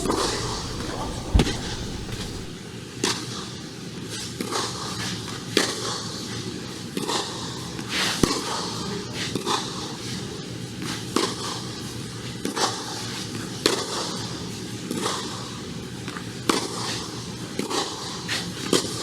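Tennis balls struck back and forth by racquet strings during a rally. Sharp hits and bounces come roughly every one to one and a half seconds, some louder than others.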